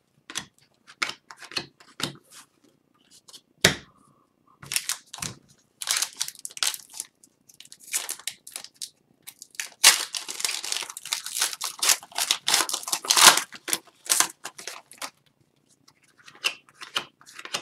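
Upper Deck Series 1 hockey card pack handled by hand: the wrapper crinkles and tears, and the cards slide and shuffle in short, crisp rustles that grow busiest in the middle. One sharp tap sounds about four seconds in.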